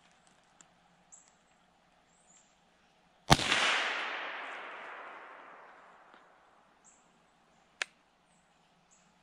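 A single rifle shot about three seconds in, its report echoing through the woods and dying away over some three seconds. A sharp click follows near the end.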